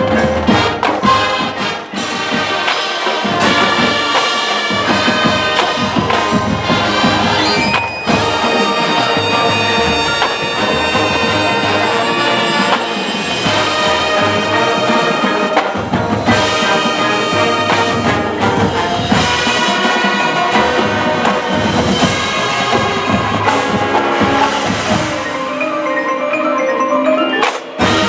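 Marching band playing its field show: brass with front-ensemble mallet percussion (marimba and glockenspiel) and drums, loud and continuous, thinning briefly near the end before the full band comes back in.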